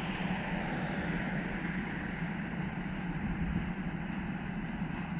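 Steady rumble of a freight train receding down the line, its wagons running on the rails.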